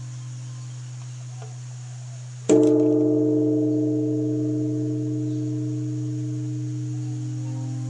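A metal bell is struck once about two and a half seconds in. It rings out in several tones that fade slowly, over a steady low drone.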